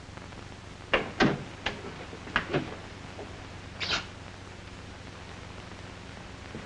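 A handful of light knocks and clicks, then a short, higher-pitched scrape or squeak about four seconds in, over the steady hiss and hum of an old film soundtrack.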